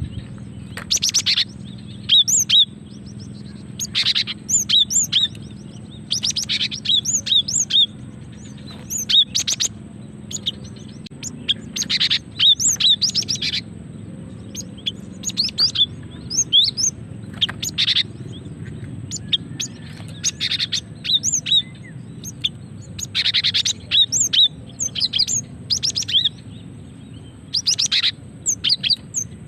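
Female cinereous tit (gelatik batu) calling: clusters of short, high chirping notes repeated every second or two. This is a female's call to males, used as a lure to set males singing.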